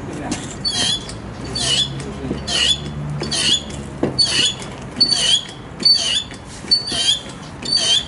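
Hydraulic pump of an HHM-200W busbar bender being worked in steady strokes to press the ram, with a short high squeak on each stroke, a little more than once a second. A low hum runs under the first half.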